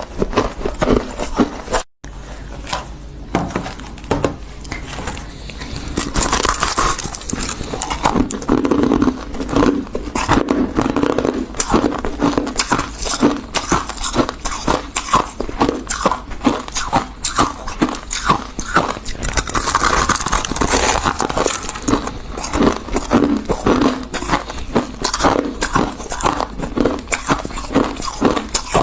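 Close-miked crunching and chewing of refrozen freezer frost: a dense, continuous stream of crisp crunches and crackles as the icy frost is bitten and chewed, with a brief break about two seconds in.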